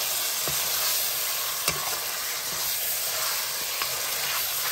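Chopped buffalo meat sizzling as it fries in a black iron wok, stirred with a metal ladle that clicks and scrapes against the pan a few times.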